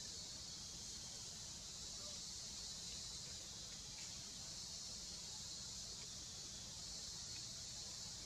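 Steady, high-pitched insect chorus with a low rumble beneath.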